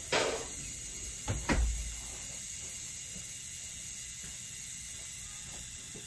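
Two knocks about a second and a half apart, the second with a heavy low thud, followed by a steady faint hiss.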